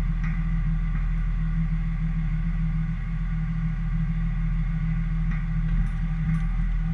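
Steady low drone of a car on the move, from its engine and road noise, with a few faint ticks.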